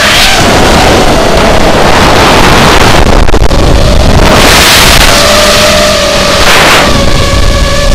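FPV quadcopter's motors and propellers whining loudly, the pitch rising and falling with throttle, under heavy wind rush on the onboard camera's microphone that swells in gusts.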